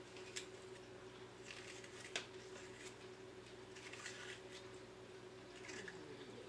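Faint kitchen handling sounds at a counter: a few quiet, squishy rustles of food and containers being moved, with two small clicks, over a steady faint hum.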